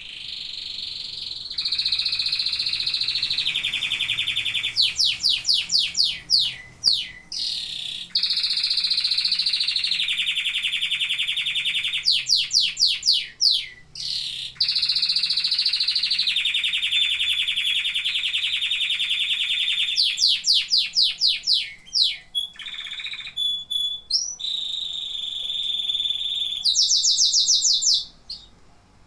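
Domestic canary singing a long song: sustained rolling trills alternate with runs of quick, sharply sweeping notes, about four a second. The song stops briefly a few times, and its last run of sweeps near the end is higher-pitched.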